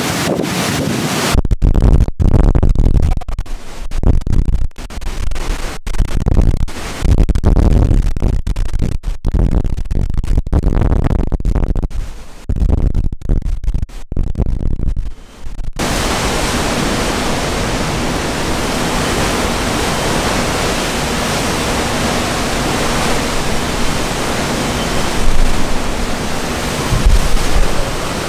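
Hurricane-force wind and driving rain. For the first half, gusts buffet the microphone with a deep rumble that keeps cutting in and out; from about halfway, a steady, even roar of wind and rain.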